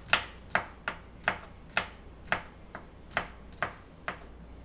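Kitchen knife chopping garlic cloves on a wooden cutting board: a steady series of sharp knocks, about two a second.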